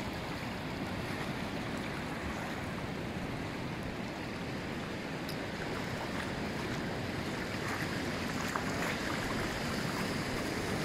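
Shallow surf washing steadily onto a sandy beach: a continuous wash of small breaking waves.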